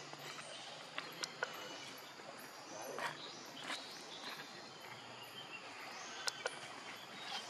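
Steady outdoor ambience with a hiss of insects, broken by a few sharp clicks about a second in and again near the end, and a couple of brief rustles in the middle.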